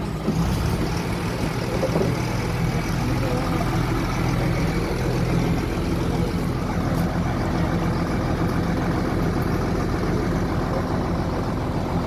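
A boat's engine running at a steady speed, heard from aboard as a low, unbroken hum.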